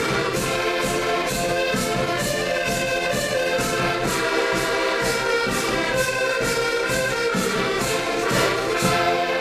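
Music: an orchestral piece with choir and brass over a steady beat of about two strokes a second.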